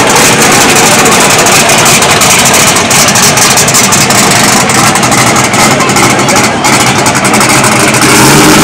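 Drag-race Oldsmobile Cutlass 442's engine running loud and close at low speed as the car rolls past, with a rapid, uneven pulse in the exhaust.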